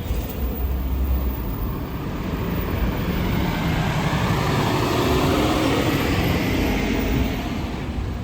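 A motor vehicle passing close by on the street: engine rumble and tyre noise swell to a peak about halfway through, then fade away.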